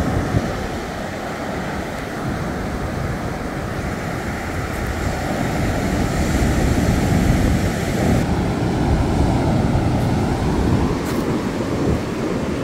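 Ocean surf breaking on a sandy beach, a steady rushing wash of waves, with wind buffeting the microphone.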